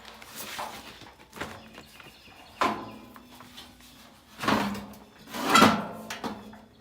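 A series of metal clanks and scrapes from parts of a furnace blower assembly being worked loose and handled, with a faint steady hum underneath. The loudest knocks come near the end.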